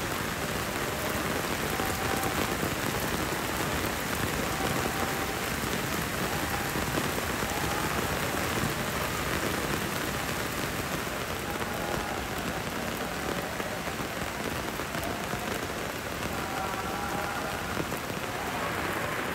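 Heavy rain falling steadily on paved ground: an even, dense hiss of drops splashing.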